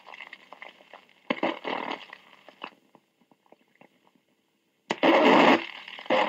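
1963 Dallas police radio Dictabelt recording played at half speed: rough, distorted bursts of radio transmission and static. One burst comes about a second in, and a louder one starts with a click near the end, with a stretch of near silence between them.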